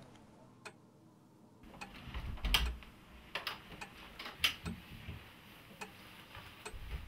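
A clock ticking steadily, about two ticks a second, in a quiet room. Over it come a few heavier bumps and footsteps, the loudest about two and a half seconds in, as someone comes in through a door.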